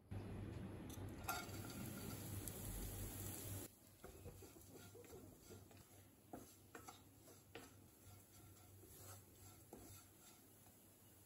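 Oil frying in a non-stick pan: a steady hiss with a low hum for the first few seconds, which stops at a sudden cut. After that comes a quieter stretch of a wooden spatula stirring grated coconut as it dry-roasts, with faint scattered scrapes and light taps on the pan.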